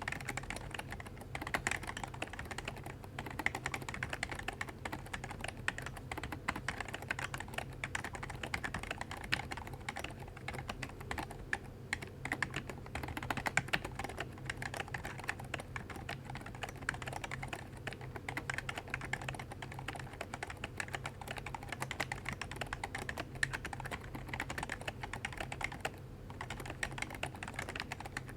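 Fast, continuous typing on a Happy Hacking Keyboard (HHKB KB02), the keystrokes following each other rapidly with no pause, its stabilizers lubed to stop the rattle.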